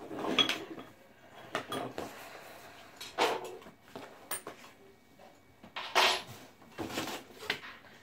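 Handling of BMX parts and their packaging: plastic bags rustling and small hard parts clattering and being set down, a string of short scrapes and clunks with a louder rustle about six seconds in.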